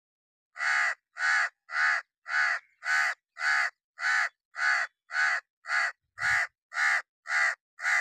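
A crow cawing repeatedly from a perch: a long, even series of about fourteen harsh caws, roughly two a second.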